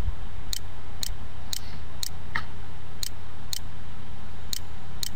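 Light regular ticking about twice a second, with a few beats missing, over a steady low hum. About two and a half seconds in there is a single sharper computer mouse click as a menu is opened.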